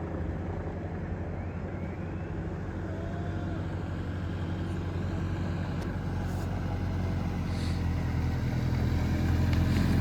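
Engine of an approaching road vehicle: a steady low hum that grows steadily louder.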